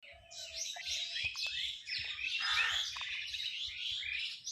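Many small birds chirping together, their short calls overlapping continuously.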